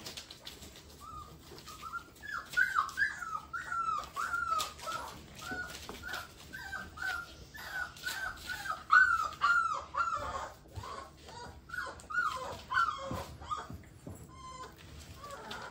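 Bullmastiff puppies whining and yipping as they play: a rapid run of short, high-pitched calls, each a brief falling note, dying away near the end, with scattered clicks and taps.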